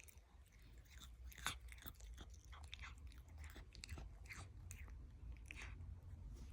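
Animals chewing fresh grass: faint, irregular crisp crunching bites, several a second.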